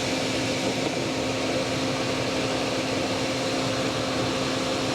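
Electric engine cooling fan of a 2014 Chevy Cruze running steadily, a whirring hum with a constant tone.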